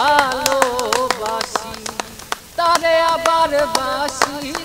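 A voice singing a melody over a quick, steady beat of sharp taps; the singing dips briefly a little past halfway, then comes back stronger.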